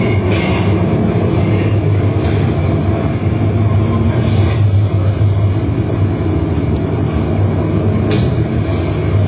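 Loud steady rumble with a low drone, broken by short hissing bursts about every four seconds.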